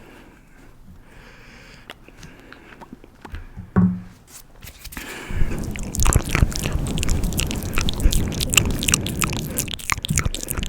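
Close-miked ASMR mouth sounds, wet clicks and smacks, sparse at first and crowding together from about halfway through. A single louder bump comes just before the halfway point.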